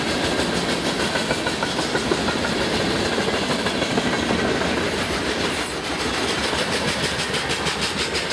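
Boxcars of a passing freight train rolling by at steady speed, steel wheels clicking evenly on the rails over a continuous rumble.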